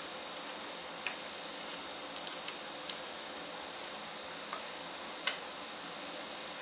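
Hand screwdriver driving a wood screw into a glued mahogany chair joint whose stripped hole has been packed with a glued toothpick: a handful of faint, scattered clicks and ticks as the screw turns and bites, over a steady background hum.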